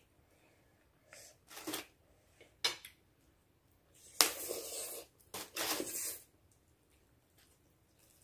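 Spicy noodles being slurped off a fork: a few short, hissy slurps. The loudest and longest, about a second, comes about four seconds in, and another follows right after.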